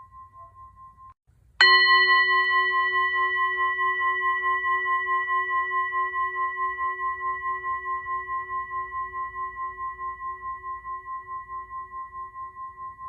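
A struck bell tone, hit once about a second and a half in, ringing on with a steady pulsing wobble and slowly fading. Before the strike, the fading ring of an earlier stroke cuts off abruptly.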